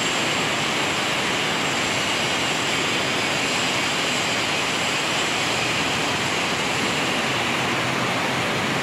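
Heavy rain pouring down in a steady, even rushing hiss.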